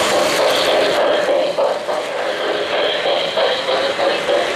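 O-gauge three-rail model train running past: a steady rolling rumble of wheels on track and electric motor.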